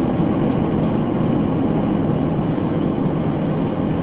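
Steady road and engine noise inside a moving car's cabin, a low even rumble with no changes.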